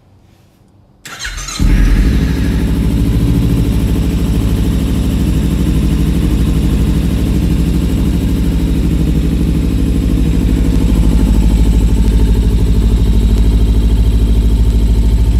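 A 2015 Kawasaki Ninja 300's parallel-twin engine, fitted with an aftermarket Yoshimura exhaust, turns over briefly on the starter and catches about a second and a half in. It then idles steadily.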